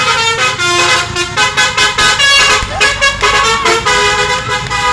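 Bus 'telolet' horn, a multi-tone musical air horn, playing a tune of quick stepped notes.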